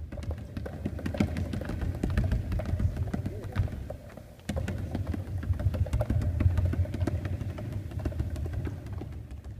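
Basketball dribbled on a wooden gym floor: a quick, uneven run of bounces over a low rumble, breaking off and starting again about four and a half seconds in.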